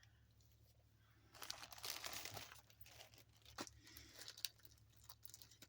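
Faint rustling and crinkling of latch-hook yarn pieces and rug canvas being handled, with a few light clicks about three and a half and four and a half seconds in.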